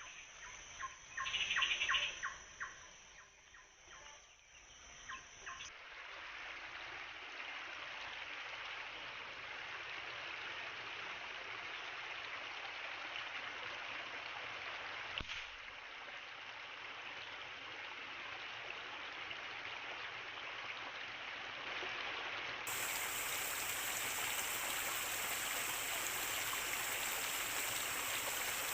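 A bird calls in a quick series of short notes over a steady high insect drone for the first few seconds. Then a steady rushing of water in the forest takes over and grows louder after about 23 seconds.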